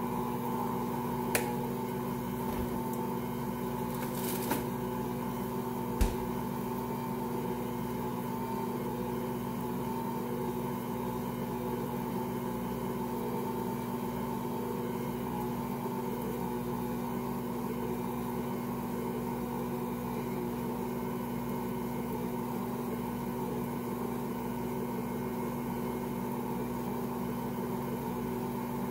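Ankarsrum stand mixer running steadily, its motor humming as the rotating bowl kneads a large batch of bread dough. A few short sharp clicks come in the first six seconds, the loudest about six seconds in.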